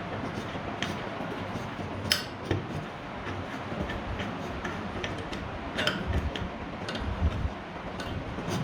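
Irregular light metallic clicks and taps over a steady hiss, as of small metal parts or tools being handled during a ceiling fan repair.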